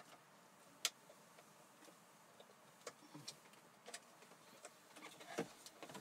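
Faint scattered clicks and light rattles of plastic wiring-harness connectors and wires being handled and plugged together, with one sharper click just under a second in.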